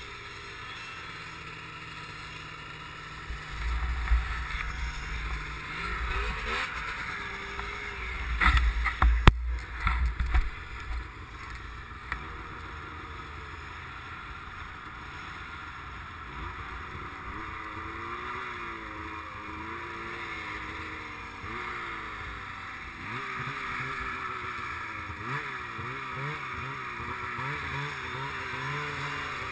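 Polaris RMK snowmobile running under way, its engine note rising and falling with the throttle, heard from a hood-mounted camera. Heavy low buffeting and a few sharp knocks come between about 3 and 10 seconds in as the sled rides over rough snow.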